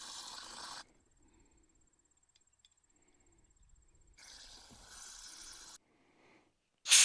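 Faint hissing in two short stretches broken off by sudden silences, then near the end a loud, steady blast of compressed air from an air blow gun, blowing out the differential's vent.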